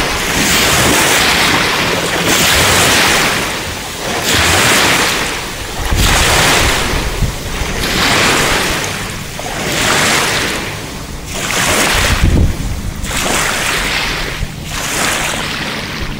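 Small waves washing in at the water's edge, a hiss that swells and fades every two seconds or so, with wind buffeting the microphone in low rumbles twice.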